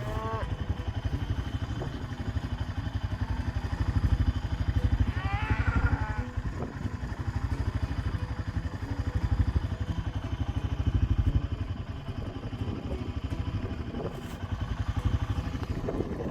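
Two-wheel-drive four-wheeler's engine running as it drives through deep snow, revving up and easing off a couple of times.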